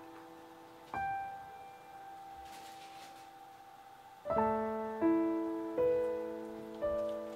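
Slow solo piano music: single notes and soft chords struck one at a time and left to ring and fade, with a fuller chord about four seconds in.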